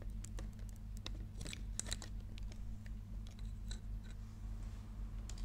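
Scattered small clicks and taps of a phone tripod and its Bluetooth remote being handled and adjusted, over a steady low hum.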